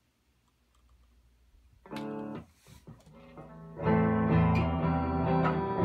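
Electric guitar played through a Fender Deluxe Reverb AB763 tube amp on its normal channel, tested after repair: a brief chord about two seconds in, then from about four seconds loud strummed chords ringing out, with no audible hum.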